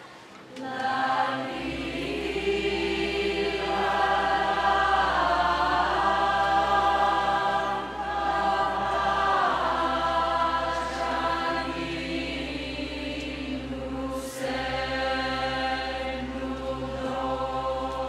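A large choir singing a Resian folk tune together in long held notes that slide down in pitch, coming in about a second in after a brief pause, over a steady low hum.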